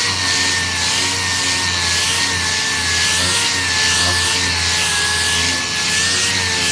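Dual-action sander running against primer on a car fender, a steady hiss of abrasive paper with a motor whine that wavers slightly in pitch as pressure on the pad changes.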